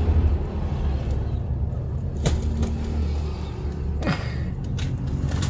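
A steady low engine hum, with a few short sharp clicks about two seconds in and again around four to five seconds in.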